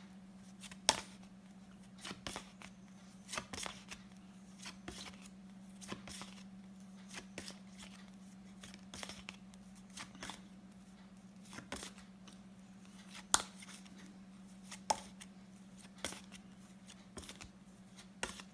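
A pack of paper flashcards being flicked over one by one: irregular soft clicks and rustles, a few sharper snaps, over a steady low hum.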